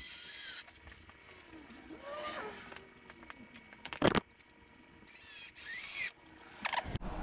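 Cordless drill driving screws into a wooden frame in short bursts, the motor's pitch sliding up and down as each screw goes in. A sharp knock about four seconds in is the loudest sound.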